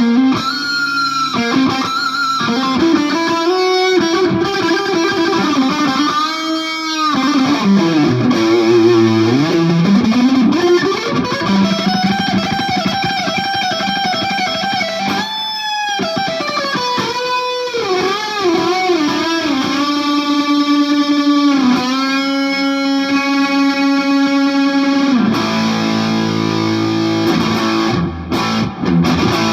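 PRS Singlecut electric guitar played with overdrive from an OCD pedal into a Marshall JCM 2000 valve amp: a lead line of held notes, string bends that arch up and back down, and vibrato. A short break in the playing comes near the end.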